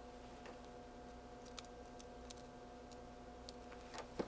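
A few faint, scattered clicks and small knocks from test leads and probes being handled and connected on a workbench, over a faint steady electrical hum.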